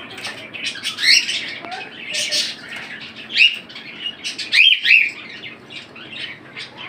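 Caged birds chirping in a crowded bird market: a background chatter of many birds, with short, sharp chirps that sweep up and down standing out about a second in, at three and a half seconds and twice in quick succession near five seconds.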